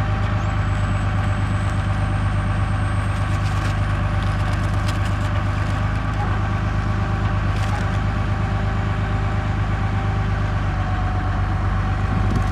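Tractor engine running steadily at an even speed, with a few light clicks about four seconds in and again near eight seconds.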